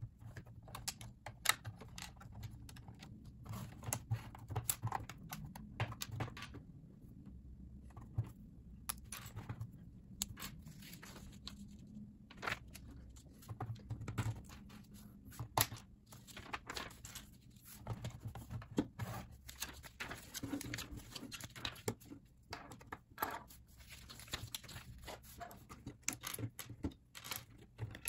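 LEGO bricks and plates being pulled apart by hand and set down on a tabletop: irregular plastic clicks and snaps with light rattling of loose pieces.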